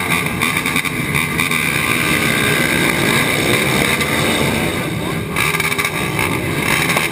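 Several racing quad (ATV) engines running together at a race start line, loud and steady, with revs rising and falling about halfway through as quads pull off.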